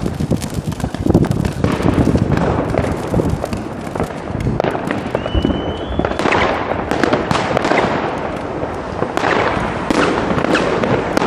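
New Year's Eve fireworks: firecrackers and rockets banging and crackling thickly over one another without a break, with a short rising whistle about five seconds in.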